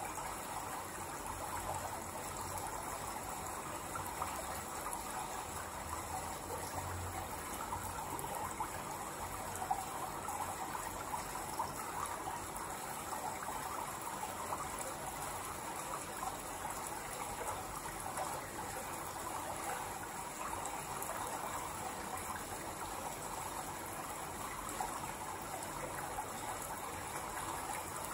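Steady rushing water, like a stream, running without a break.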